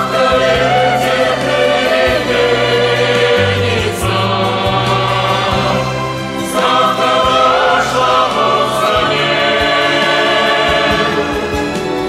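Music: a slow song with wordless choir-like voices holding long notes over sustained bass notes.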